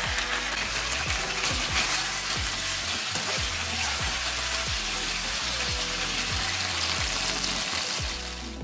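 Bite-sized chicken breast pieces sizzling in hot oil in a frying pan, a dense, steady hiss.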